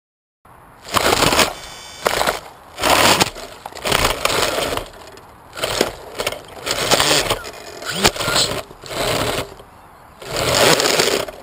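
Leaves and twigs rustling and scraping against a quadcopter's onboard camera stuck in a tree branch, in repeated loud bursts about a second apart as the branch is jostled.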